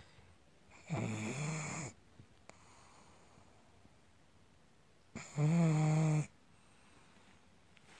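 Pug snoring: two drawn-out snores about four seconds apart, each lasting about a second, with quiet between.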